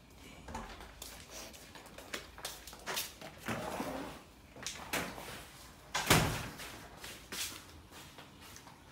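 A door being handled: a string of clicks and knocks, the loudest a thump about six seconds in.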